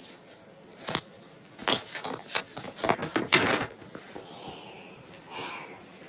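Pages of a paper picture book being handled and turned: a run of sharp paper rustles and clicks in the middle, then a softer swish of paper near the end.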